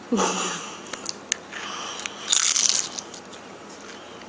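A short low vocal sound right at the start, then a few small clicks and a crunchy, rustling noise about two seconds in.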